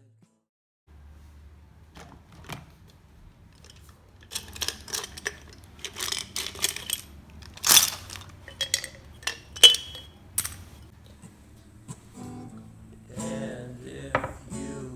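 Irregular sharp clicks and knocks of objects being handled, clustered in the middle, over a low steady hum. Guitar music comes back in near the end.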